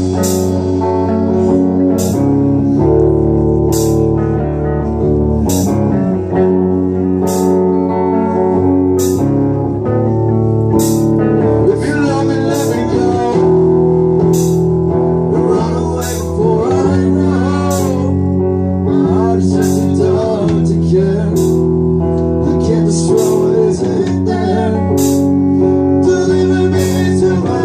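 Live rock band playing: electric guitars, bass guitar and drum kit, with a cymbal crash about every two seconds through the first half. A male voice comes in singing about halfway through.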